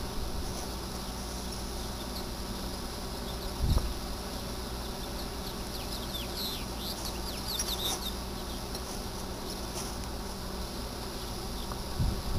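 Solid clay bricks being set down on a stacked brick rocket stove: two dull knocks, about four seconds in and near the end, over a steady high hiss. A few short falling chirps come in the middle.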